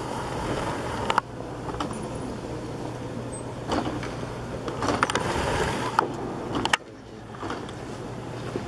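Room tone of a large busy hall: a steady low hum and a wash of noise, with a few sharp clicks and knocks of footsteps on the hard floor.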